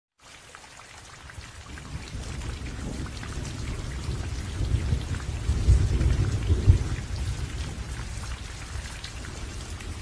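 Steady rain with a low rolling rumble of thunder. It fades in at the start, and the rumble swells about halfway through.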